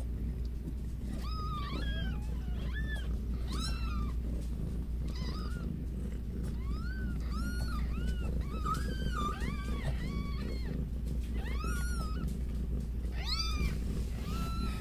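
Newborn kittens mewing: many short, high-pitched cries that rise and fall in pitch, coming one after another in irregular bursts.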